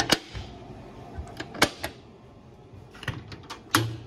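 Several sharp clicks and metallic knocks from a fire truck's metal compartment doors and their paddle latches being worked by hand, the loudest clunk near the end.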